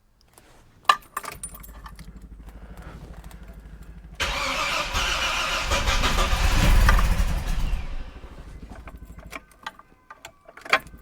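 Freshly rebuilt 2.8 litre Vauxhall CIH straight-six being started for the first time: a click, then the starter cranking it over for about three seconds before it fires and runs for about four seconds, then dies away. Near the end it is cranked again and catches.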